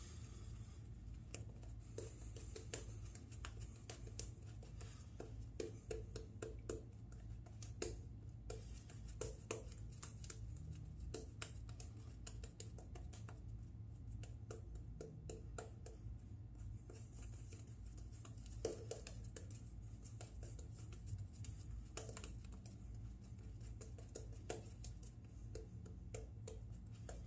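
Synthetic shaving brush scrubbing lather onto wet day-and-a-half stubble: a faint, continuous scratchy brushing full of small clicks.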